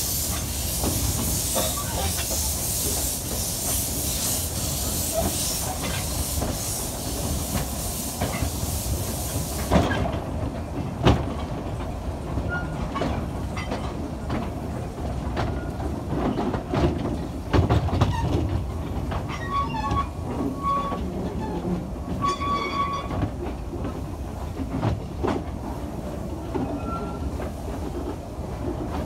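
Narrow-gauge steam train heard from an open passenger coach. Steam hisses loudly for about the first ten seconds and stops suddenly, then the wheels clack and knock over the rail joints as the train runs, with a few short high squeals in the second half.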